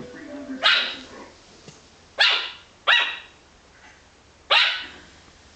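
Yorkshire terrier puppy barking: four short, sharp barks, the middle two close together and the others about a second and a half apart.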